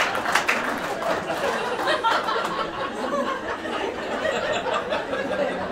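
Audience laughing and chuckling, a loose, irregular spread of laughter.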